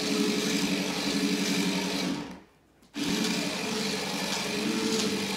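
Toy remote-control stunt car's small electric motors and gears whirring as it spins, cutting out for under a second about halfway through and then starting again.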